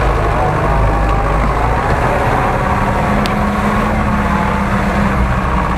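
Modified GAZ-66 off-road truck's engine running steadily under load as the truck drives over rough forest ground. There is one short click about three seconds in.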